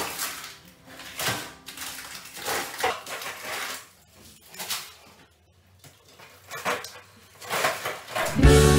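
Frozen food in plastic bags being taken out of a fridge's freezer compartment: irregular rustling of plastic and knocks of frozen packs against the shelves, in separate bursts with short pauses. Music comes in near the end.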